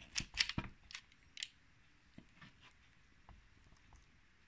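A knife cutting into a baked apple cake in its pan: a quick run of crisp clicks and scrapes in the first second and a half, then a few faint ticks.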